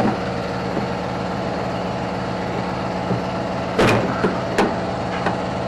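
A motor or small engine running steadily with an even low pulse, with a few short knocks and clicks of tools being handled over it; the loudest knock comes about four seconds in.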